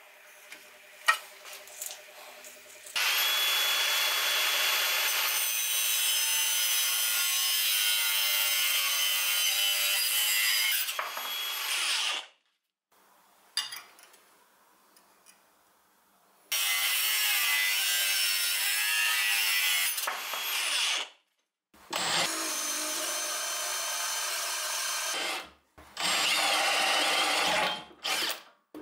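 Hand-held power drill boring into a steel tube, running in four long bursts of several seconds each with short pauses between, the motor's pitch holding steady under load.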